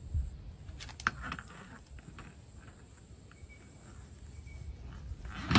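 Faint outdoor ambience with a low rumble and a few soft clicks and knocks in the first second or so; the noise swells near the end.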